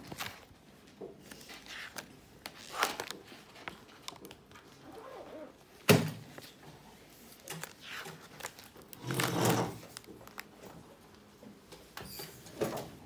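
Pages of a large spiral-bound sketchbook being turned and handled: several papery swishes, the longest about nine seconds in, and one sharp knock just before six seconds in, the loudest sound.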